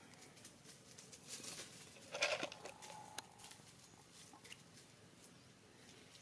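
Monkeys moving and handling things close by: scattered light patter and rustling. A louder rustling burst comes about two seconds in, followed by a brief thin call-like tone.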